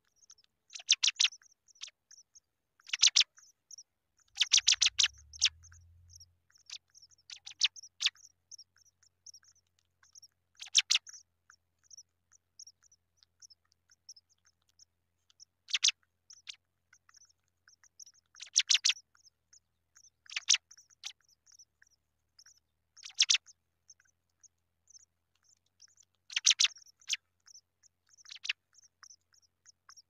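Loud, short, high chirps in quick pulsed bursts, one every two to three seconds, over a faint continuous high chirring. A brief low rumble comes about five seconds in.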